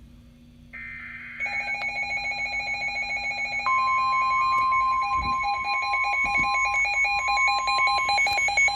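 Emergency Alert System broadcast: a last short burst of SAME header data screeches about a second in. Then an electronic alert alarm starts beeping rapidly, and at about four seconds the steady 1050 Hz NOAA Weather Radio warning tone joins it, the two sounding together to the end.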